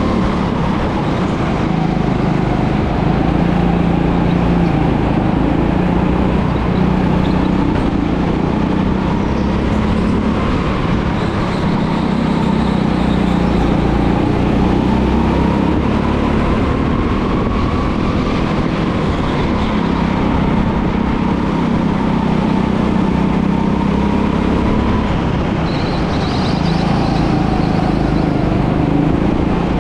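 Go-kart engine running continuously, its pitch rising and falling as the throttle opens and eases.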